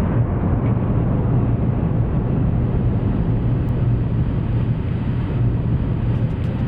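Power hammer press running steadily between blows: a loud, even low hum and rumble with no strikes.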